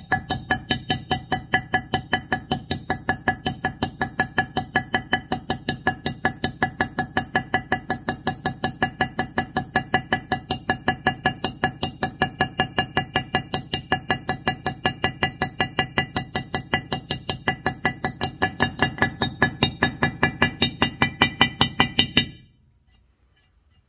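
Light hammer striking a round-ended steel punch into a metal surface in a fast, even rhythm of about four blows a second, each blow ringing with a metallic tone. This is hand stippling to give the surface a cast-bronze texture. The hammering stops abruptly near the end.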